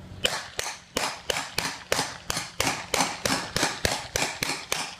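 A line of single-action revolvers fired into the air in a ragged volley, about fifteen sharp shots at roughly three a second.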